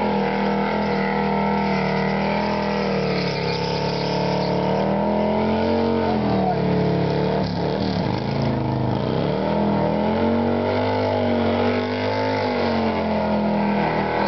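Harley-Davidson FXD's V-twin engine held at high revs through a burnout, spinning the rear tyre. The engine note wavers up and down and dips about halfway through before picking up again.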